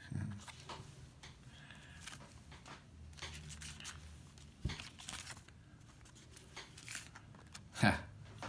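Paper rustling and light clicks as small old printed die-cuts and poster stamps are handled and shifted about, with one louder brief noise near the end.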